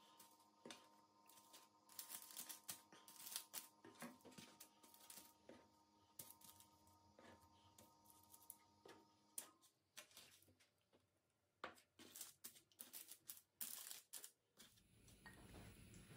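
Faint rustling of parchment paper and soft taps as sliced rolls of raw dough are picked up and set down on a lined metal baking tray, in scattered clusters, over a faint steady hum that stops about halfway through.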